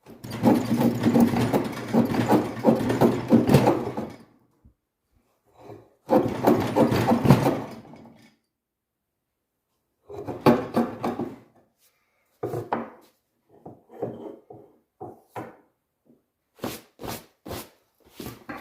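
A tool scraping across wood in separate strokes: two long strokes, then a run of shorter, quicker ones.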